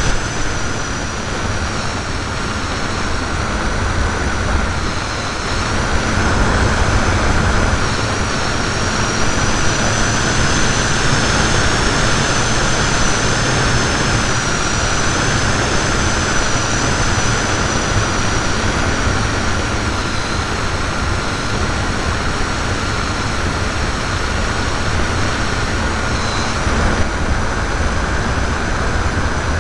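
ParkZone T-28 electric RC plane in flight, heard from a camera mounted on the airframe: the motor and propeller give a steady whine whose pitch wavers slightly, over heavy wind rush on the microphone.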